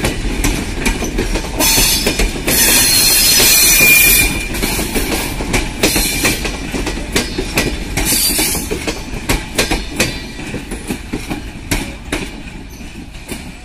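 Passenger coaches of an intercity train rolling past at low speed, wheels clacking over rail joints in a run of sharp clicks. A high-pitched metallic wheel squeal sounds about 2 to 4 seconds in and again briefly near 8 seconds, as the train runs into a junction. The sound grows fainter near the end as the last coaches pull away.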